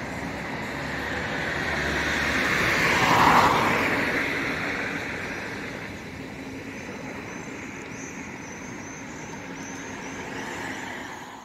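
A trolleybus passing by, its tyre and road noise swelling to a peak about three seconds in and then fading away.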